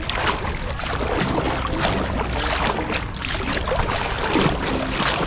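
Shallow seawater sloshing and splashing around the legs of a person wading, over a steady low rumble.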